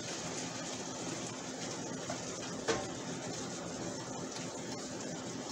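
Beef and peas sizzling steadily in a skillet as a wooden spoon stirs them, with a small knock about two and a half seconds in.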